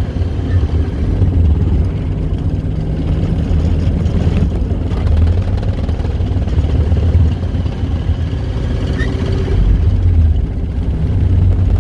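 Homebuilt car's engine running steadily at a low pitch.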